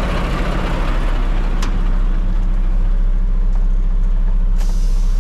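Mack Anthem semi truck's diesel engine idling steadily, with air hissing that fades over the first second or so, a single click about a second and a half in, and a higher hiss starting suddenly near the end.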